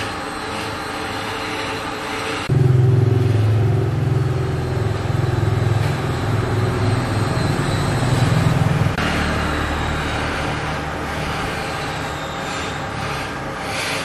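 Steady mechanical running noise. A heavy low hum comes in suddenly about two and a half seconds in and eases off about nine seconds in.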